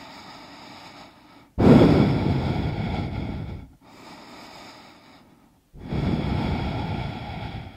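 A woman's deep yoga breathing: two long, audible exhales about four seconds apart, each starting suddenly and fading away, with quieter breathing between them.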